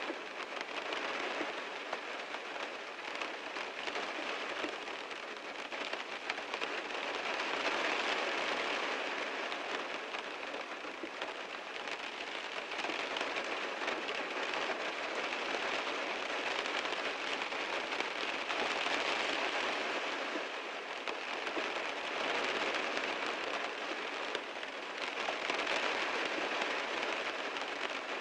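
Heavy rain falling on a car, a dense steady patter of drops on the body that swells and eases every few seconds.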